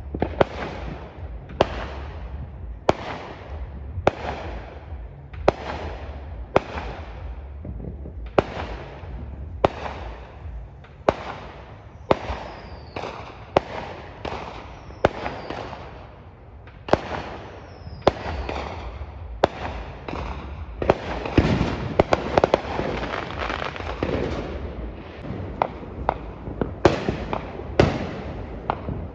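Fireworks exploding overhead: a string of sharp bangs about once a second, each trailing off in an echo, with a thicker volley of crackling bangs a little past two-thirds of the way through.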